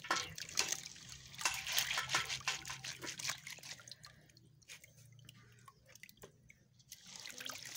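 Water splashing and dripping as soaked, crushed corn is washed by hand to rinse off the chaff. Irregular splashes in the first half, then a few quieter seconds, picking up again near the end.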